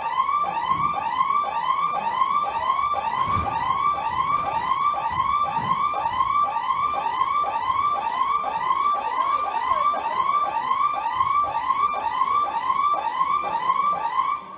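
Siren-like electronic sound effect played over a sound system: a wailing tone that falls sharply in pitch, repeating evenly about twice a second, then cutting off abruptly at the end.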